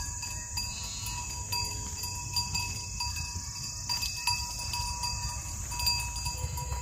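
Livestock bells clinking now and then as animals move about, the ringing tones brightening with each knock, over a low rumble and a steady high hiss.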